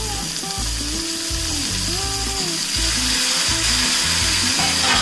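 Onions and tomatoes sizzling as they fry in hot oil in a pan, with a steady hiss. Soft instrumental background music plays underneath.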